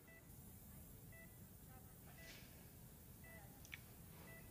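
Hospital bedside patient monitor beeping softly, a short pitched beep about once a second, over faint room hum.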